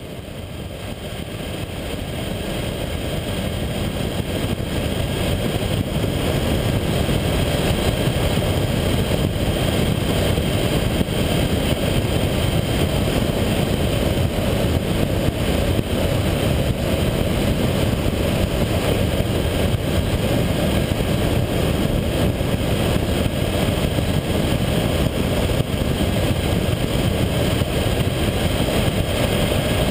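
Honda VFR800 motorcycle cruising at road speed: a steady rush of wind and road noise on a camera mounted low by the front wheel, with the engine running underneath. It fades in over the first few seconds, then holds steady.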